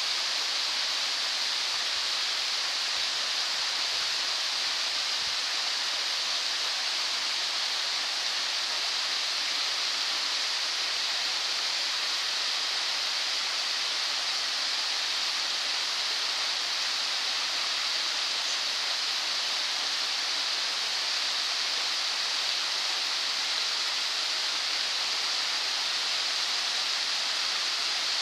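Shallow stream water rushing steadily over stones, an even hiss with no breaks.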